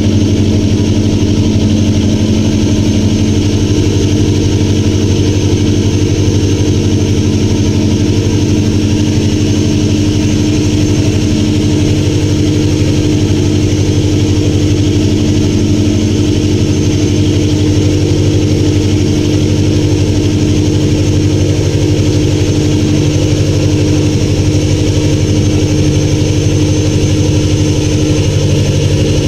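Small motorboat's engine running steadily under way at constant speed, a loud even drone that holds without changing.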